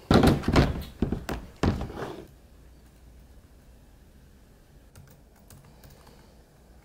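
A laptop being handled and typed on: a run of thumps and clicking knocks over the first two seconds, then quiet with a few faint key clicks.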